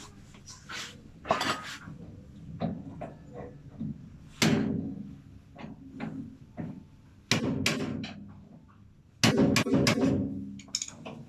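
Irregular knocks, thuds and clattering, as of hard parts and tools being handled and set down, with three louder bangs about four, seven and nine seconds in.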